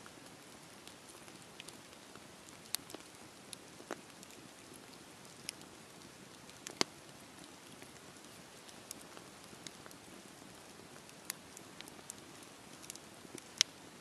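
Wood campfire burning: a faint steady hiss broken by irregular sharp crackles and pops, the loudest about halfway through and just before the end.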